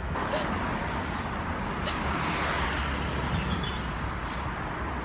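Wind buffeting a handheld phone's microphone outdoors: a steady low rumble with a hiss over it, and a couple of faint clicks.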